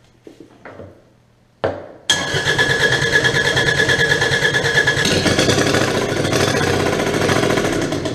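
Kubota D722 three-cylinder diesel being turned over on its electric starter: a short bump about a second and a half in, then steady cranking with a high starter whine for about six seconds. It does not settle into running, which the owner puts down to air still in the fuel system after the injection pump was refitted.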